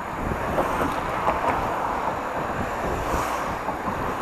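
Wind rushing over the microphone of a camera on a moving bicycle, mixed with the tyre and engine noise of cars passing in the next lane.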